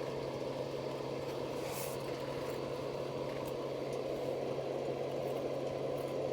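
A steady low mechanical hum with a constant low drone, and a few faint, brief ticks.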